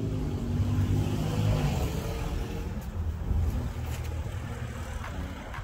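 An engine running, its pitch rising and falling.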